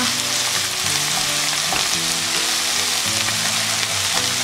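Sliced onions sizzling in oil in a frying pan as a wooden spoon stirs them: an even, steady frying hiss. Quiet background music with held notes plays underneath.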